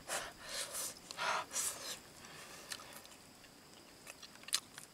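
Mouth and breath sounds of a person eating grilled fish with her fingers: three or four short, breathy puffs in the first two seconds, then quieter, with a few faint clicks.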